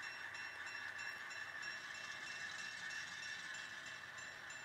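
Sound-decoder locomotive bell of a Rapido HO-scale SW1200 model diesel switcher, ringing in even, repeating strokes.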